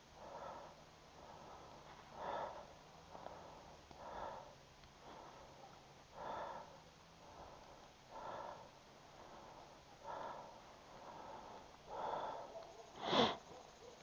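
A person breathing audibly through the nose, a soft breath about every two seconds, with one sharp, louder sniff or click near the end.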